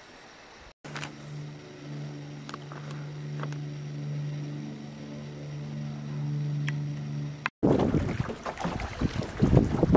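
A steady low hum with a few faint clicks. After a sudden cut about three-quarters of the way in, wind buffets the microphone over choppy lake water around the canoe.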